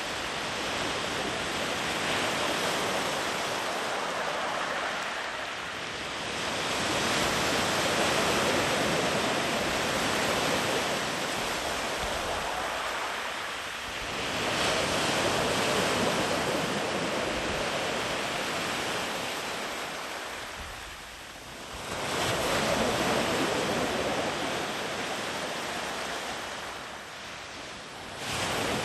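Sea waves breaking and washing in on a beach: a continuous surf that swells and eases in slow surges every several seconds as each wave rolls in long and far.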